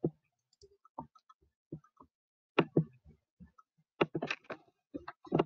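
Irregular clicking of someone operating a computer, about a dozen sharp clicks spread unevenly, coming closer together near the end.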